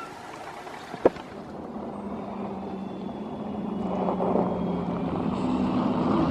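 A sharp click about a second in, then a motor vehicle's engine hums low and steady, growing louder, and stops abruptly near the end.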